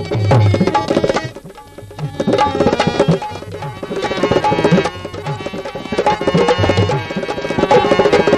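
Tabla pair played in a fast rhythmic pattern: sharp strokes on the small treble drum and deep strokes on the bass drum that bend in pitch. There is a brief lull about a second in.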